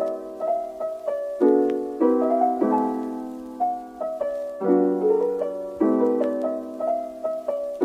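Background piano music: gentle sustained chords with a slow melody, each struck note ringing and fading.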